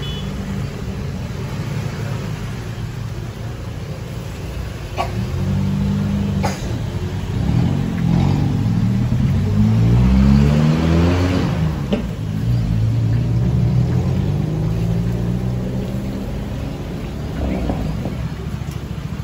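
Motor vehicle engine passing on the street, its pitch gliding up and down and loudest about ten seconds in, over a steady low traffic rumble. A few sharp clicks sound now and then.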